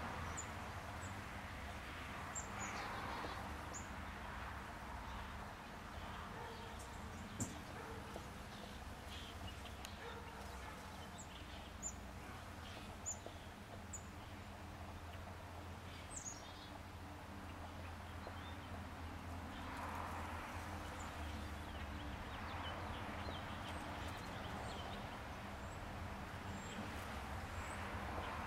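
Honey bees buzzing around blossoms as a low, steady hum, with short high-pitched bird chirps scattered throughout. A soft rushing noise swells up twice, about three seconds in and again around twenty seconds in.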